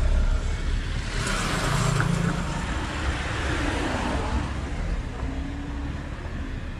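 Street traffic: a car passes close by, its tyre and engine noise swelling from about a second in and fading after about three seconds, over a steady low rumble of traffic.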